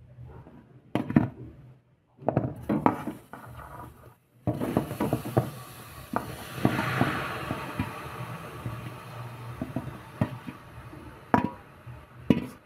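Soft, wet boiled ash gourd (petha) cubes tipped from a steel bowl into a hot aluminium kadhai: the steel bowl knocks and scrapes on the pan rim and the pieces tumble and clatter in, with a steady hiss starting about four seconds in and two sharp knocks near the end.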